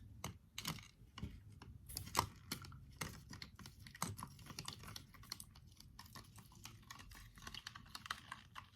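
A spoon stirring slime glue mixture in a cup, with irregular light clicks and taps of the spoon against the cup.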